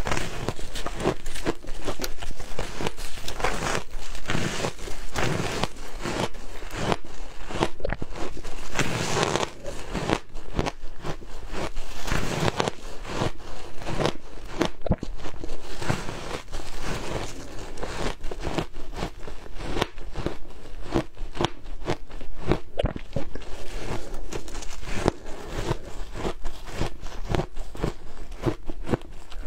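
Compacted frozen shaved ice being bitten and chewed: a dense, continuous run of crisp crunches, one after another with no pause.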